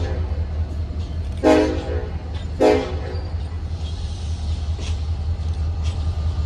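Diesel locomotive air horn sounding two short blasts about a second apart, over the steady low rumble of the locomotive's engine.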